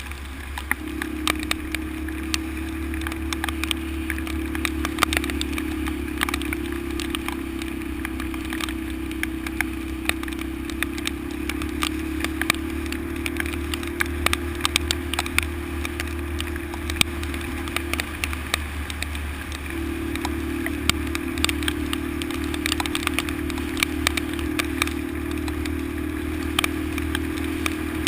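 Honda XL125's single-cylinder four-stroke engine running steadily under way, with many short clicks and rattles from the rough road. The engine note falls away for a couple of seconds about two-thirds of the way in, then picks up again.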